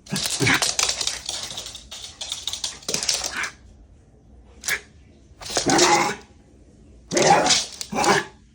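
Shiba Inu dog barking and growling in short excited bursts, with scrabbling noise through the first few seconds.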